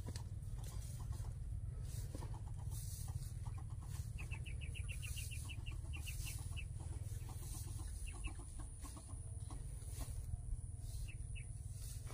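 Chickens clucking in short repeated notes over a steady low rumble, with a quick run of higher notes a few seconds in.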